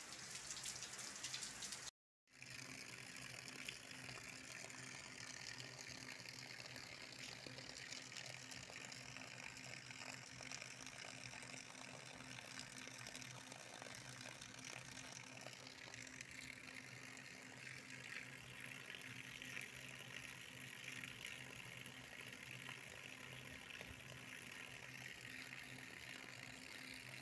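Steady rain falling, with runoff water running over the ground. The sound drops out briefly about two seconds in.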